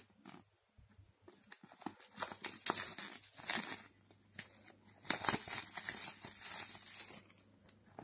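Cellophane shrink wrap being torn and peeled off a smartphone box, crinkling and crackling in two long stretches with a short pause about halfway.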